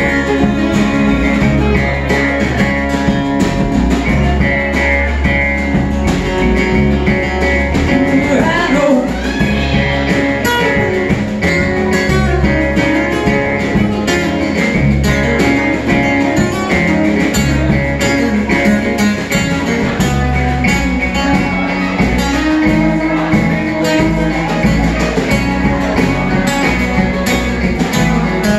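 Live band music: acoustic guitars and an upright bass playing together.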